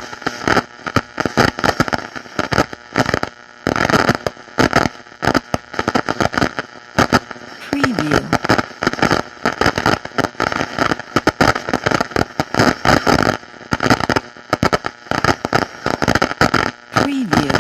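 Electronic static: dense, irregular crackling and hiss with a steady hum-like tone underneath and brief drop-outs, like interference in a television or radio signal.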